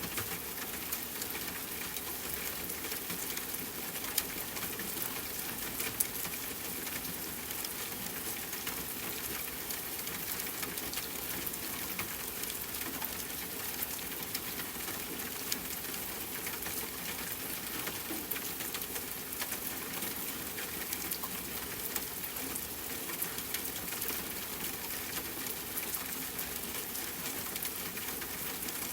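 Rain falling steadily on a tent, mixed with a crackling campfire: a dense, even hiss with many small sharp pops scattered through it.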